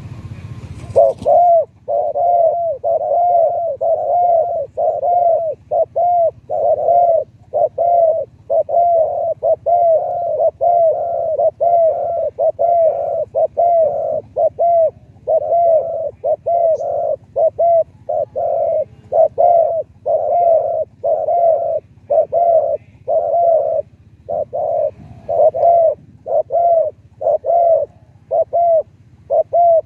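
Spotted dove cooing over and over in a long, unbroken run of deep, rhythmic coos.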